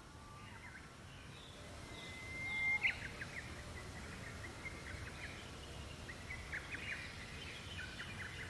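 Wild birds singing in the forest. About two and a half seconds in comes a held whistled note that ends in a sharp, louder flourish, then quick short chirps repeat for the rest of the time over a faint outdoor background hush.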